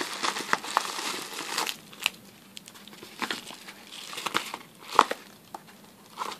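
Yellow padded paper mailer crinkling as it is handled and opened by hand: dense crackling for the first second and a half, then scattered sharp crackles, with a loud snap about five seconds in.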